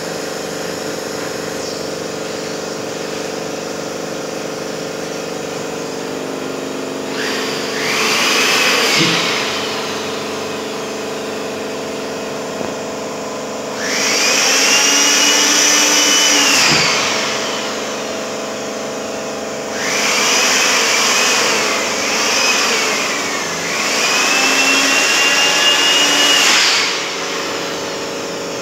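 Handheld electric air pump inflating an inflatable boat through a valve in its floor. It is switched on in four bursts of a few seconds each, each spinning up with a rising whine and winding down with a falling one, over a steady machine hum.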